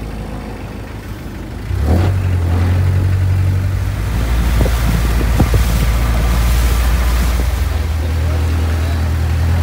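Long-tail boat engine running steadily, growing louder about two seconds in as it opens up.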